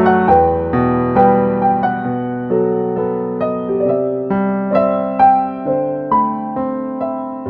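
Yamaha CK88 stage keyboard playing a slow, gentle piano melody over sustained chords, notes struck and left to ring.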